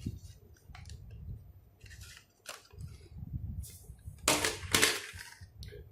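Packaging of a small SSD being handled and opened: irregular crinkling and rustling, with the loudest crackles about four and a half seconds in.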